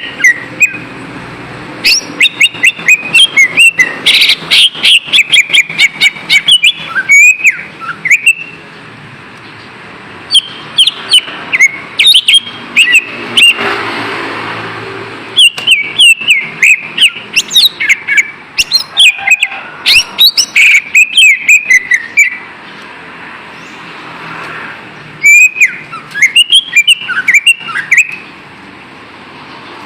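Cucak ijo (greater green leafbird) singing: rapid runs of sharp chirps and whistled slides in phrases a few seconds long, broken by short pauses, over steady background noise.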